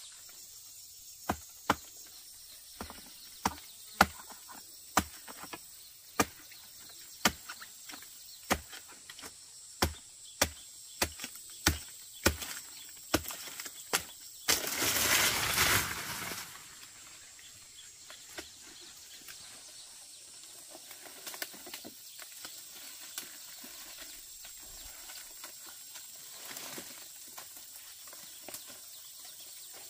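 A blade chopping at a palm fruit stalk in the crown of a palm tree: about twenty sharp strokes, one or two a second. They are followed by a rustling crash lasting about a second and a half as the cut bunch falls down through the leaves.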